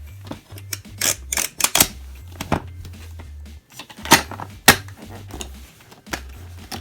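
Hard plastic toy playset being handled: a series of sharp plastic clicks and taps, the loudest two a little after four seconds in, as its parts are closed and moved.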